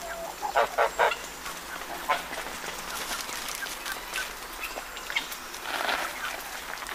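Farmyard poultry calling: a quick run of short calls just under a second in, then scattered clicks and rustling as the birds crowd round the feed.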